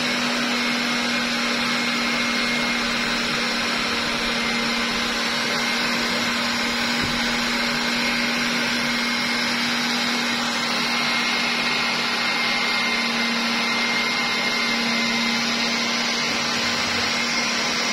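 Aeolus Cyclone TD-901T pet dryer blower running steadily: a rush of air with a low hum and a thin high whine from its motor.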